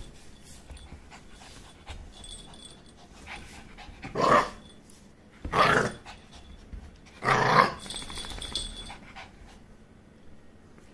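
Small dog barking three times, a second or two apart.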